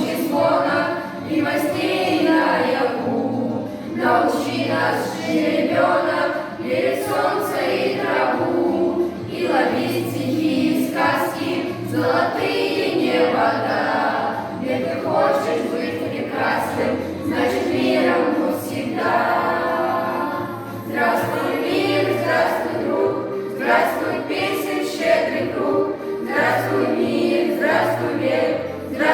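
A group of schoolchildren singing a song together in unison, with instrumental accompaniment holding steady low notes beneath.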